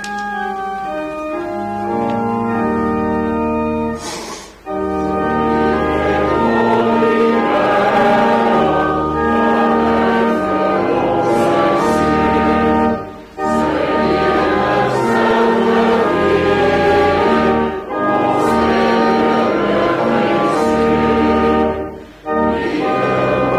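Organ playing a hymn in full sustained chords, phrase by phrase, with a short break between lines.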